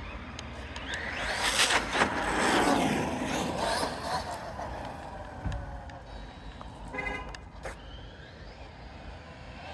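Electric RC car's motor whining up and down in pitch as it speeds up and slows between jumps, loudest between about one and four seconds in. A brief horn-like honk comes about seven seconds in.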